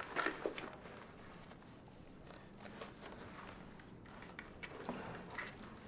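Soft rustling of clothing and gear with a few small clicks as things are handled up close, over a faint low room hum.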